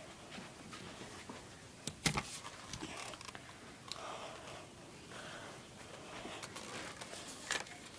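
Rustling and handling noises with a few sharp knocks, the loudest about two seconds in and another near the end.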